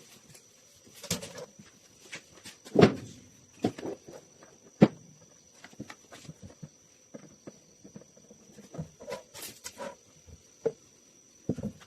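Scattered knocks, taps and clicks of a handle-installation jig, cabinet hardware and wooden parts being handled and set in place, the sharpest knock about five seconds in.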